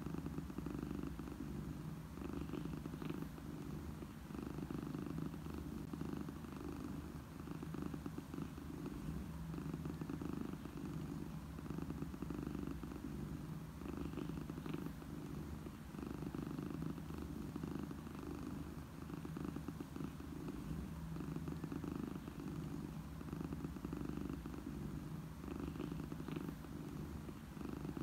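Domestic cat purring, a steady, continuous close-up purr.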